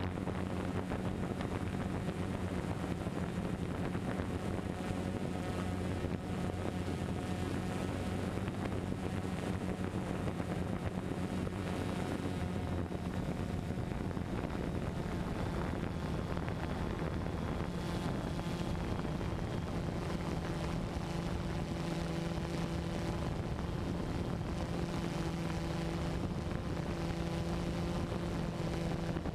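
A multirotor drone's motors and propellers humming steadily, with wind rushing over the microphone. The hum steps up in pitch about halfway through as the motors change speed.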